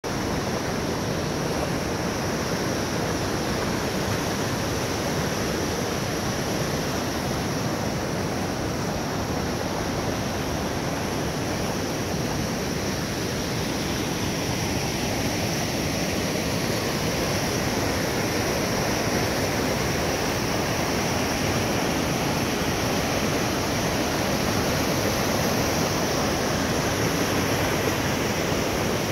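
Whitewater in a rocky river cascade, a steady rush of pouring water.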